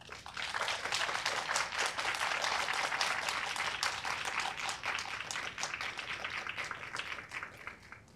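Audience applauding after a performance: many hands clapping together. It starts about half a second in, thins out after about seven seconds and stops just before the end.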